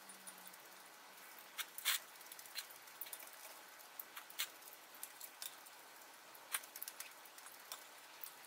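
Quiet close-up eating sounds: chopsticks stirring and tapping in a glass bowl of noodles, with small wet clicks of slurping and chewing scattered throughout. The loudest is a single sharp sound about two seconds in.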